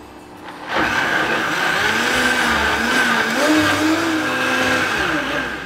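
Countertop blender motor starting about a second in and running at full speed, a steady high whine over a churning rush with a lower hum that wavers in pitch, as it purees tomatoes, onion, jalapeño, garlic and cilantro into smooth salsa; it winds down near the end.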